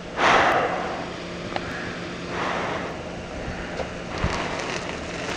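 Wind blowing across the camera microphone, with a sudden louder whoosh just after the start that fades within about half a second and a softer swell near the middle.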